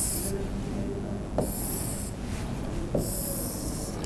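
Chalk scraping across a chalkboard in three separate strokes, each starting with a light tap and lasting under a second, as lines of a graph are drawn.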